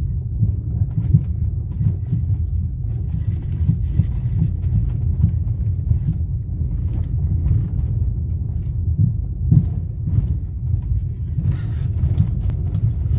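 Maruti Suzuki Brezza CNG driving over a rough, potholed road: a continuous low road rumble with irregular knocks, the 'khat khat' rattle from the left side of the car that is the fault being shown. The rattle is very dominant and irritating to the owner.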